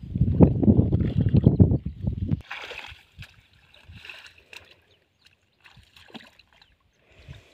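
A loud low rumble with thuds for the first couple of seconds, cut off abruptly. Then light, intermittent splashing and sloshing as hands work in shallow, muddy pond water.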